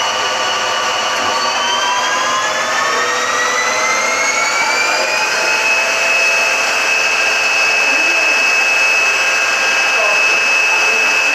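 Lathe spindle and its electric motor running with a high whine of several tones; about a second and a half in the pitch rises for about four seconds as the spindle speeds up toward 2,000 rpm, then holds steady at speed.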